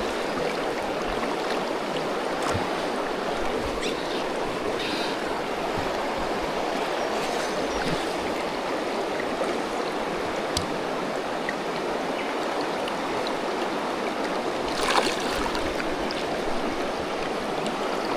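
Steady rush of a fast-flowing river, with a brief louder splash about three quarters of the way through.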